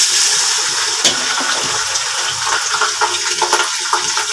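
Wet, freshly drained boiled rice hitting hot ghee in a pot and sizzling loudly, the sizzle starting suddenly as the rice goes in and holding steady.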